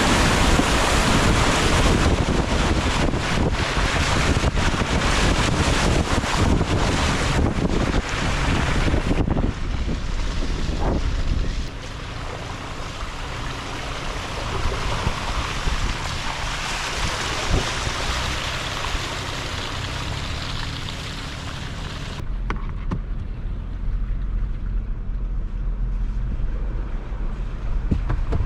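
Pickup truck driving along a dirt trail under heavy wind noise on the microphone. The noise eases about nine seconds in, leaving the vehicle's steady running, and near the end turns to a deep low rumble with the hiss gone.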